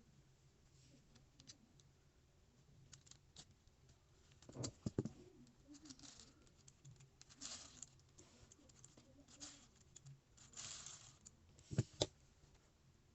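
Plastic Lego Technic parts being handled: faint scattered clicks and short scraping rustles, with a pair of sharper knocks about five seconds in and again near the end.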